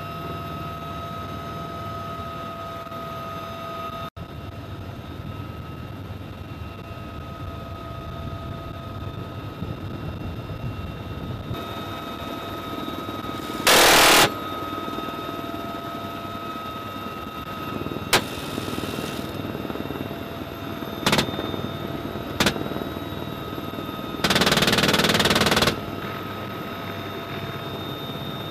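UH-1Y Venom helicopter's turbine engines and rotor running steadily with a whine, while a door-mounted machine gun fires several bursts: a loud burst about 14 s in, shorter ones around 18, 21 and 22 s, and a longer loud burst of about a second and a half near the end.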